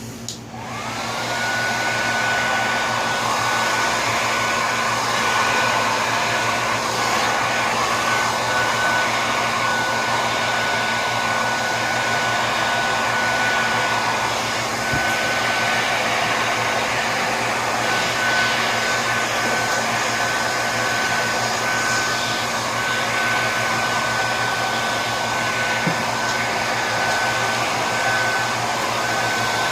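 Hand-held blow-dryer switching on and running steadily: its motor whine climbs to a steady high pitch within the first second, over a constant rush of air.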